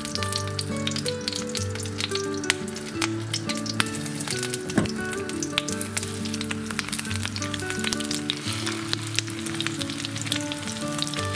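Egg-battered zucchini slices sizzling and crackling in hot oil in a frying pan, over soft background music of held notes.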